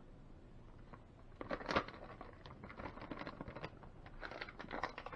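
Plastic bag of shredded cheese crinkling and rustling as the cheese is shaken out of it and scattered by hand. It starts about a second and a half in and goes on as an uneven run of crackles.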